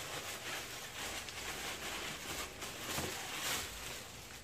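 Tissue paper rustling and crinkling as a sneaker is pulled out of its shoebox.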